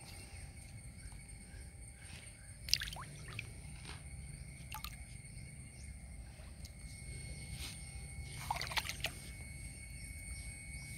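Quiet waterside ambience: faint dripping and small splashes of water, with a few light knocks about three seconds in and again near nine seconds, over a steady faint high tone.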